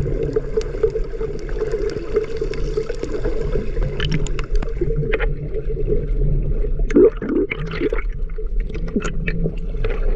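Water sloshing and gurgling close to the microphone, with scattered small clicks and splashes and a steady low hum underneath.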